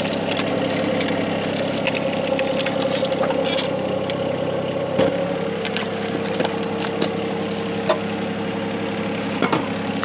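Volvo EC20 mini excavator's diesel engine running at raised throttle under hydraulic load as its arm-mounted wood splitter drives a wedge through a red oak round, with scattered sharp cracks and knocks of the wood splitting. The engine note drops slightly about halfway through.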